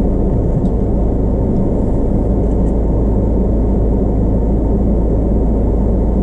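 Vehicle engine idling: a steady low rumble picked up by a camera mounted on the bonnet.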